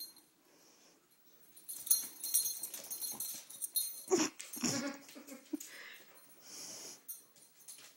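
Boxer dog playing roughly with a tough plush toy hippo: dog noises and scuffling. It is quiet at first, gets busy about two seconds in, and the loudest bursts come a little past halfway.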